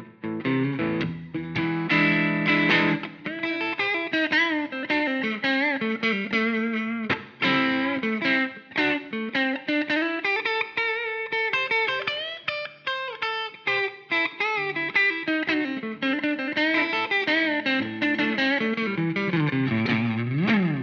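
Donner Hush X electric travel guitar on its neck pickup, played through a Donner Arena 2000 multi-effects unit on a lightly overdriven blues patch: a lead line of single notes with string bends and vibrato.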